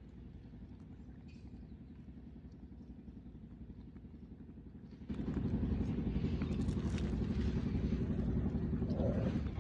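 Faint low background noise, then about five seconds in a motor vehicle engine comes in suddenly and runs steadily and much louder, easing off right at the end.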